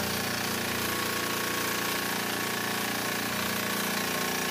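Electric scroll saw running at a steady speed, its reciprocating blade cutting through pallet wood.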